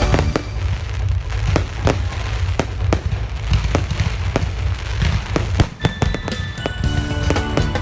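Fireworks going off: a rapid, irregular series of sharp bangs over a continuous low rumble, with background music coming back in near the end.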